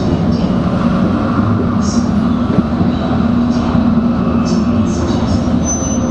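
Tokaido Shinkansen Nozomi train running at speed, heard from inside the car: a steady low rumble of wheels on rail, with brief hissing swells now and then and a short thin high tone near the end.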